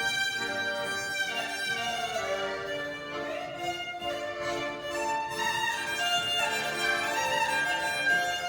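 Live band music with a fiddle playing a melody over several held notes from other instruments.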